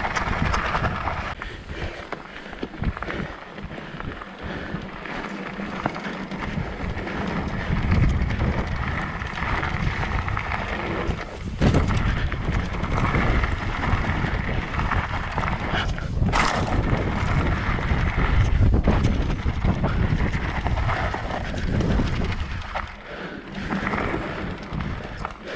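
Wind buffeting the microphone during a ride on a Voodoo Zobop-e electric mountain bike, a continuous rumbling noise with a single sharp knock about halfway through.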